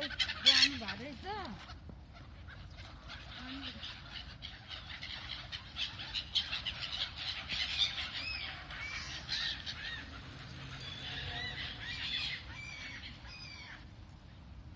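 A flock of waterbirds calling all at once: a dense chatter of short, overlapping squawks, with lower honking calls in the first second or so. The calls die away shortly before the end.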